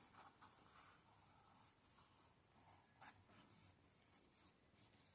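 Near silence with faint scratchy strokes on paper as squiggles are drawn, a few brief ones standing out about half a second in and around three seconds in.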